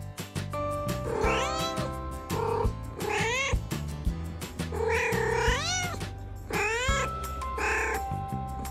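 A domestic cat meowing repeatedly: several drawn-out meows, each rising and then falling in pitch, over background music with a steady beat.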